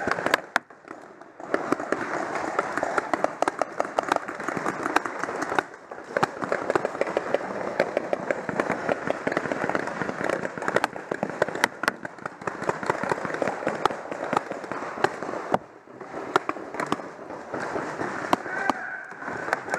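Paintball markers firing rapidly: a dense run of sharp pops and smacks as paintballs fly and strike around a wooden cable-spool bunker, with a few short lulls.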